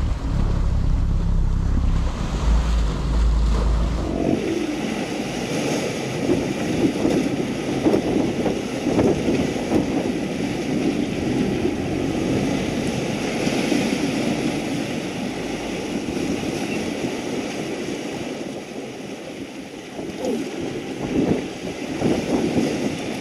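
Waves washing against shoreline rocks with wind buffeting the microphone. A boat's low engine hum is heard at first and stops about four seconds in.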